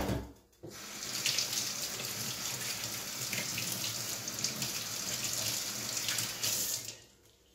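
A brief loud knock, then a kitchen tap running steadily into a sink for about six seconds before it is shut off.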